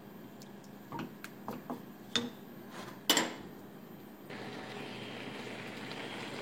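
A utensil knocking and clinking against a cooking pan several times, the loudest knock a little past the middle. About two-thirds of the way in, a steady hiss of the simmering sauce starts.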